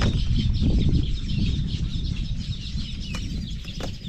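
Wind rumbling on the microphone, with many birds chirping in the background and a few sharp clicks near the end.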